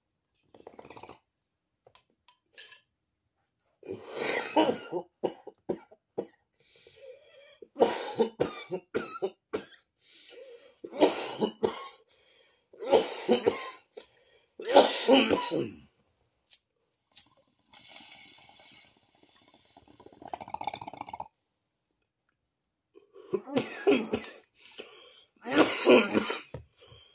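A person coughing hard in repeated bouts a few seconds apart, with throat clearing; there is a quieter lull in the middle before the coughs return near the end.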